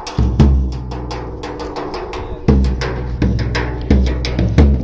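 Dhol drum played as a welcome: deep bass strokes falling about every 0.7 s, with quick lighter taps between them.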